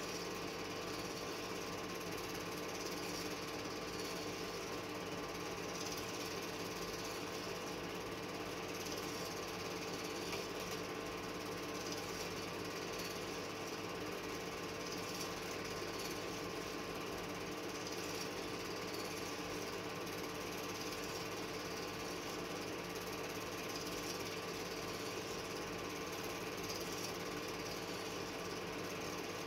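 Home-movie film projector running: a steady, rapid mechanical clatter of the film transport with a constant hum, unchanging throughout.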